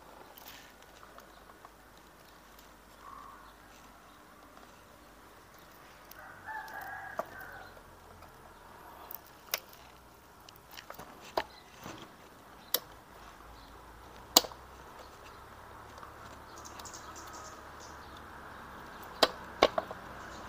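Sharp metal clicks and knocks, several single ones and a quick pair near the end, as transmission gears and shift parts are fitted by hand into the open crankcase of a Yamaha Crypton engine. A rooster crows once about six seconds in.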